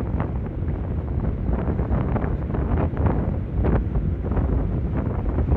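Wind buffeting the microphone while riding a Honda PCX 160 scooter at a steady cruise, with the scooter's running and road noise underneath as a steady low rumble.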